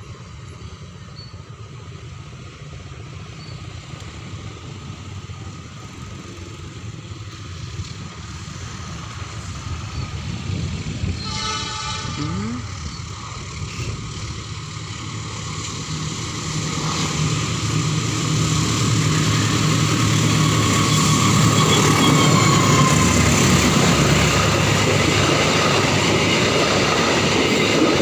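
Train approaching and passing a level crossing. It grows steadily louder, with a short horn blast about a third of the way in. In the second half it runs loudly past, with wheels clattering over the rails.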